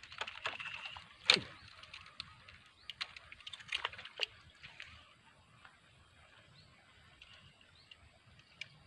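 Faint, scattered clicks and ticks from baitcasting tackle being worked. The sharpest and loudest click comes a little over a second in.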